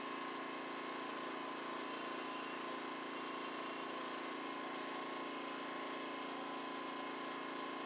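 Steady background noise: an even hiss with a faint constant high-pitched whine and no distinct events.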